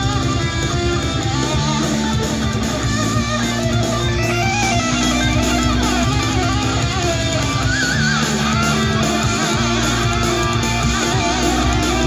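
Guitar-driven rock music played loud through a Soundcore Boom 2 portable Bluetooth speaker at about 80% volume, on a custom EQ with the bass boost on, with a strong steady bass under the guitar.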